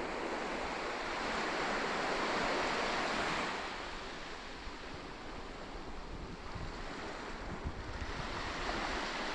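Sea surf: a wave surges in and peaks in the first few seconds, then washes back, with a smaller swell again near the end.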